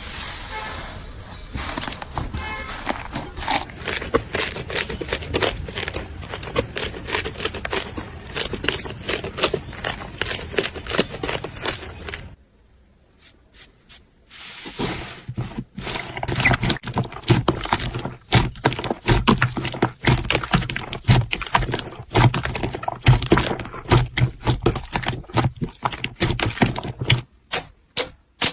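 Slime being squeezed and poked by hand, giving dense crackling and popping clicks. The sound breaks off for about two seconds midway, then resumes, and near the end it thins to separate pops at an even pace.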